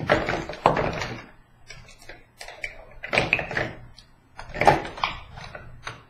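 Knocks and rattles of face-painting supplies being rummaged through, in three bursts: during the first second, around three seconds in, and again near the end.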